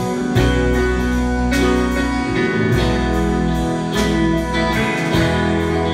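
Country band playing an instrumental break between sung verses: a guitar carries the lead over bass notes and a steady beat.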